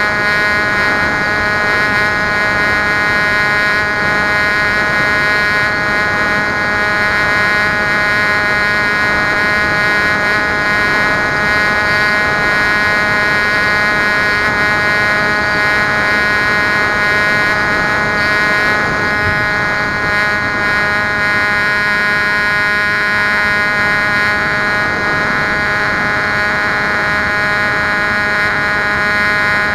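Electric motor and pusher propeller of a Bixler foam RC plane in flight, heard from on board: a steady, high-pitched whine of several tones over a rushing noise, holding much the same pitch throughout.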